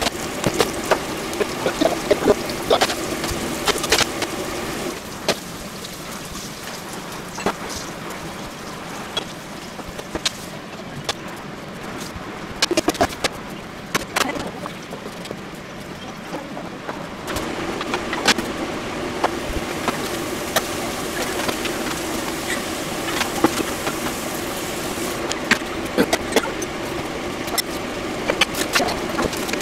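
Stovetop cooking sounds: metal tongs clicking and scraping against a wok as shrimp are turned, with scattered sharp knocks over a steady hum. For a stretch in the middle the hum drops away and only occasional knocks are heard, then the hum returns with more utensil clicks in the pan.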